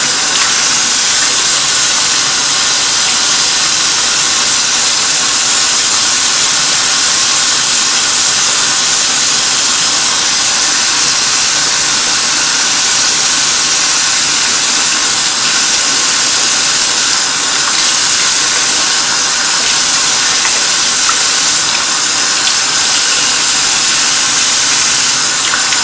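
Bathroom faucet running steadily into a sink, a constant hiss of falling water, while a wet makeup sponge is squeezed and worked under the stream.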